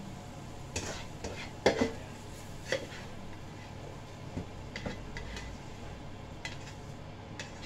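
Spatula scraping and knocking against a wok while stir-fried minced pork with basil is scooped out into a bowl: irregular scrapes and clinks, the loudest knocks a couple of seconds in.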